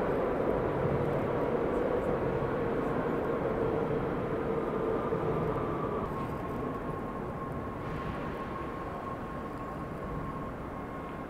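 Electric train running through the station, a steady rumble with a held whine that sinks slightly in pitch and slowly fades.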